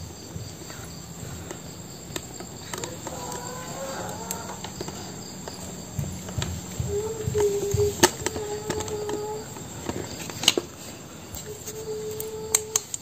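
Crickets chirping steadily, with several short held voice-like notes and a few sharp clicks or knocks.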